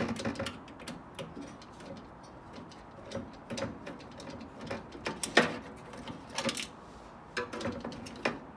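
Gloved hands working parts loose inside a microwave oven's sheet-metal chassis: irregular small metallic clicks and rattles, with a few sharper knocks in the second half.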